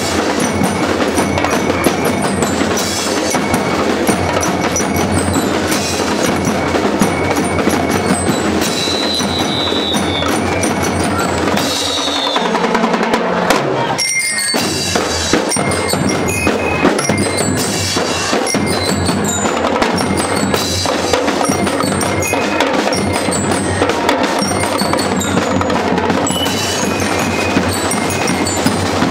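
Marching band and lyre corps playing: bell lyres ringing out the melody over saxophones and drums. The deeper parts drop out for a moment about halfway through.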